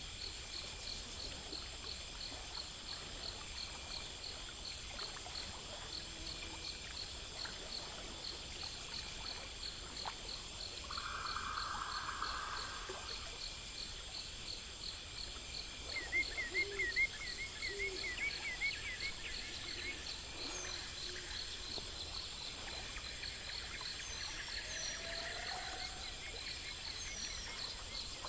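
Outdoor nature ambience: a steady chorus of crickets and other insects, with rhythmic high pulsing and continuous high trills over a soft wash of background noise. A few short animal calls come through around the middle, among them a brief wavering trill.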